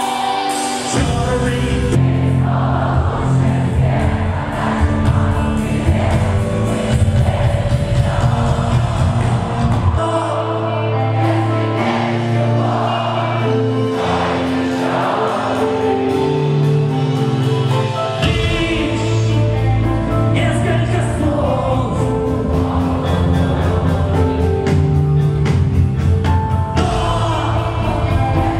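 A song with singing over sustained chords. The deep bass drops out for several seconds in the middle and then comes back.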